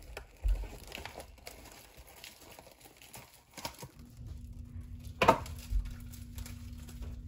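Plastic oven-roasting bag crinkling and rustling as it is handled and gathered closed around a turkey, with one sharp louder crackle about five seconds in. A steady low hum starts a little past halfway.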